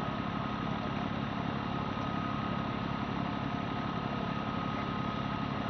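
A boat's engine running steadily with an even, rapid pulse and a thin steady whine over it.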